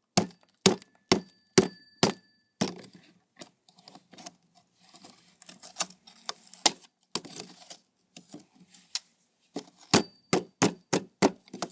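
Sharp metal-on-metal strikes: a quick run of about five in the first two seconds, some ringing briefly, then scraping and scattered clicks, and another fast run of strikes near the end. A hand tool is knocking and prying solidified aluminum out of a forge's screen.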